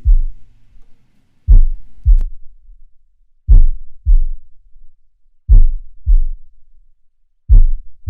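Slow heartbeat: loud, low double thumps, a beat and a second beat about half a second later, repeating every two seconds. The last note of the acoustic accompaniment fades out just at the start.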